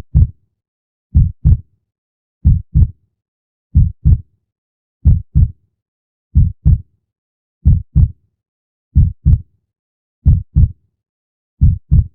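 Heartbeat sound: double lub-dub thumps repeating in a slow, even rhythm about every 1.3 seconds (roughly 46 beats a minute), with silence between the beats.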